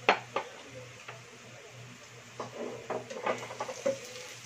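Minced garlic frying in oil in a nonstick frying pan, with two sharp clicks just after the start. From about halfway through, a metal turner stirs and scrapes the garlic around the pan in a quick run of clicks and scrapes.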